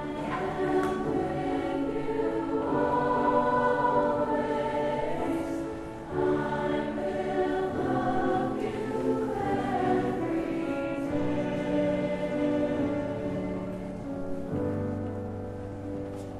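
Mixed chorus singing in harmony, in long held phrases with a short break between them about six seconds in.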